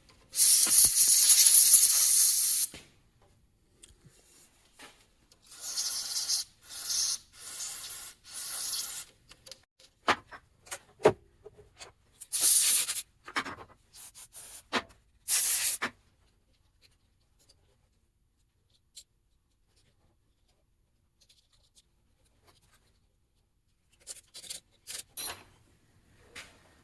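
Welded switch contacts from a DeWalt chop saw being cleaned by hand: a hiss about two seconds long near the start, then groups of short rubbing strokes and a few sharp clicks, with a few more strokes near the end. The cleaning frees a contact that had welded together and left the saw always on.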